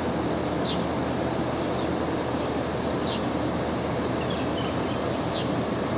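Steady low drone and rumble from a large container ship passing close by. A few short, high bird chirps come through it, about one every second.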